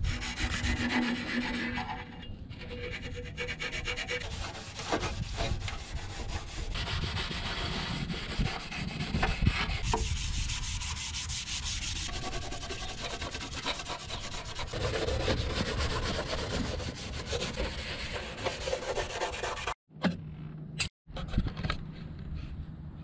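Red Scotch-Brite scuff pad rubbed back and forth by hand over the painted sheet steel of a BMW E30 engine bay, scuffing the surface to prepare it for primer. The scrubbing breaks off for two brief moments near the end.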